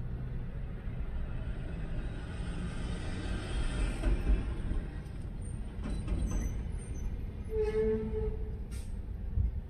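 A medium-duty truck drives past close by, its engine rumbling and swelling, then fading. About eight seconds in there is a brief squeal, followed by a short hiss.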